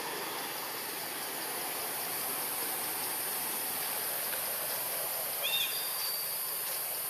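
Steady outdoor forest ambience: an even, hiss-like background, with one short high chirp about five and a half seconds in.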